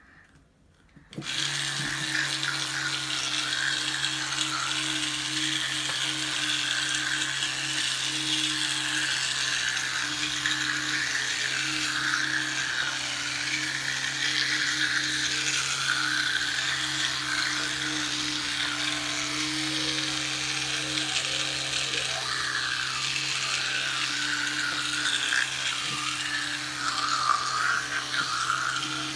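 Electric toothbrush switched on about a second in, then buzzing steadily while brushing teeth. Its sound wavers as the head moves around the mouth.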